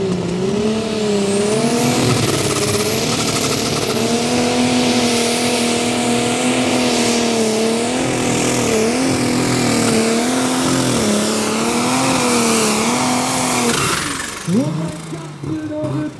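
Super Stock pulling tractor's turbocharged diesel engine running flat out under load as it drags the weight sled, with a high turbo whine that climbs in the first two seconds and then holds. About 14 seconds in the throttle comes off and the engine drops away suddenly.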